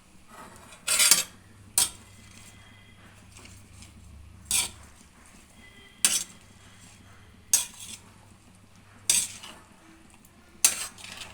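A metal spoon or spatula knocking and scraping against a cooking pan while the food is stirred, a sharp stroke about every one and a half seconds, some strokes drawn out a little longer.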